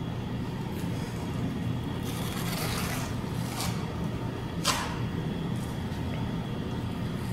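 A notched trowel combing wet tile mortar on a floor: a few short scrapes, the sharpest about two-thirds of the way in, over a steady low hum.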